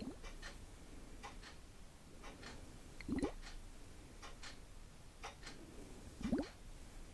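A steady tick-tock: pairs of light ticks about once a second. Two louder short rising plops come about three seconds in and again near the end.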